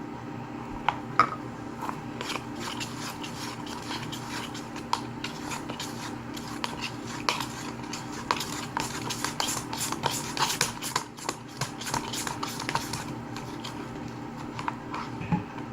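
Slime being mixed in a container after more liquid detergent is added: a run of small clicks and scrapes, thickest in the middle, over a steady hum.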